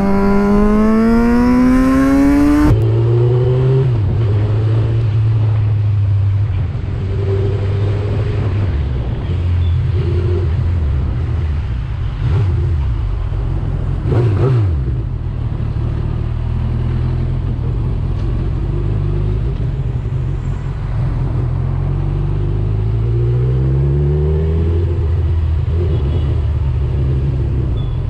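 Motorcycle engine with its revs climbing, then after a cut a motorcycle running at low speed, its revs rising and falling and climbing steadily near the end as it accelerates. Two short knocks about halfway through.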